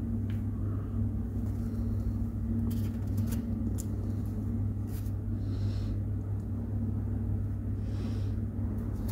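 Steady low hum, with a few faint clicks and soft rubbing from small plastic and silicone parts as an ear tip is worked onto a Galaxy Buds 2 earbud by hand.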